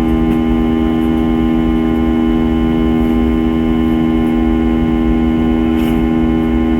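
Airbus A320-232's IAE V2500 engines heard inside the passenger cabin at steady thrust: a constant hum of several fixed tones over a low rumble.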